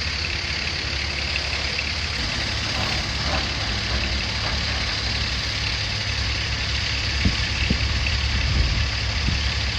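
Diesel engines of heavy demolition equipment running steadily with a low rumble, with no distinct impacts.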